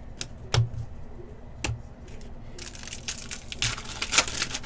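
Two sharp taps about a second apart, then a foil trading-card pack being torn open and crinkled in the hands, a rapid crackling that runs for the last two seconds.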